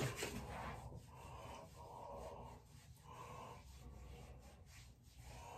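Faint rubbing of hands working a skin-care product between the palms and over a wet face, with breaths through the nose.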